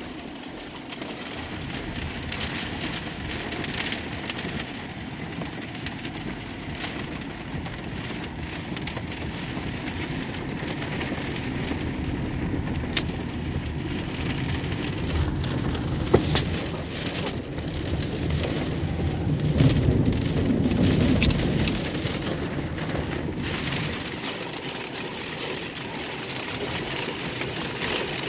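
Heavy rain pelting a car's roof and windshield, heard from inside the cabin over the car's running engine, with a few sharp ticks and a louder surge about twenty seconds in.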